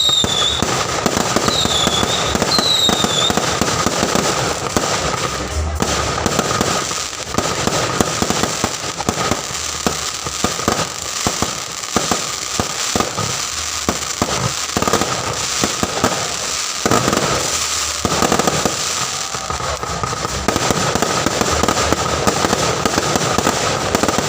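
Fireworks display going off: a continuous, dense run of bangs and crackles, with a few short whistling chirps in the first three seconds.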